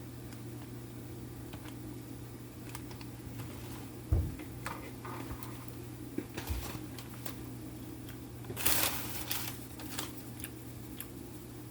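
Scattered clicks and taps of food and packaging being handled while eating, with a low thump about four seconds in and a short crinkling rustle about nine seconds in, over a steady low hum.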